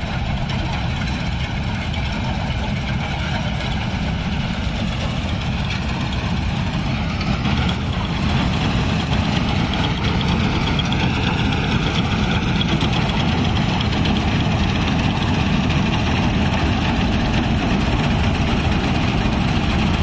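Combine harvester running while harvesting soybeans: a steady, loud engine and machinery drone that grows a little louder about eight seconds in as the machine comes closer.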